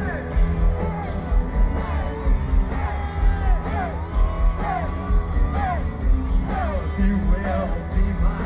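Live rock band playing at full volume, with a heavy, steady beat and a singer's yells sliding up and down in pitch over the guitars.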